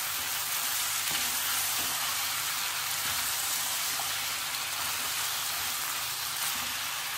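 Black beans with onions, peppers and carrots sizzling steadily in a non-stick frying pan while being stirred with a wooden spoon.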